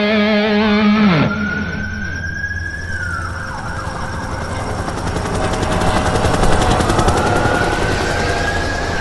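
Siren wail in a break in the song: a tone that rises slowly, holds and falls away, twice, over a steady hiss. In the first second the music's notes slide down in pitch and stop.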